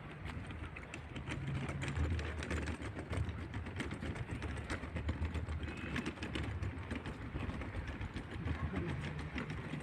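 A vehicle engine running steadily, a low hum with dense rapid rattling clicks over it.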